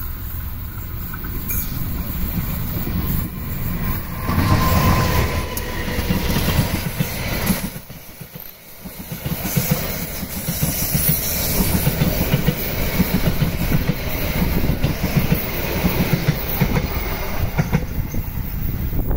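CC203 diesel-electric locomotive and its train of eight passenger coaches passing close by at speed. The sound builds as the locomotive goes past about four seconds in, and then the coach wheels clatter over the rail joints in a steady clickety-clack.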